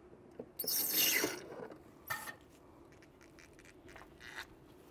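CTA hand-operated fluid pump being stroked, pushing gear oil through its hose into the differential fill hole: one long stroke about a second in, a shorter one about two seconds in, and fainter ones near the end.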